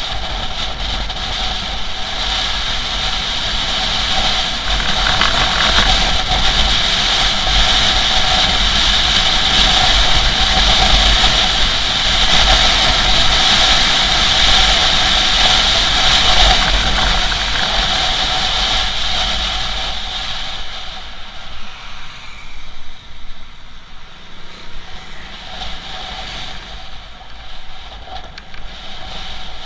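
Motorcycle riding at speed: steady engine drone and wind rushing over the bike-mounted camera's microphone, loudest midway, then dropping and turning uneven after about 20 seconds.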